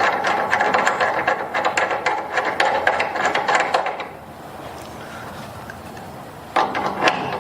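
Wrench turning a crank-removal tool threaded into a crank, with rapid metallic clicking for about four seconds, then a short burst of clicks near the end.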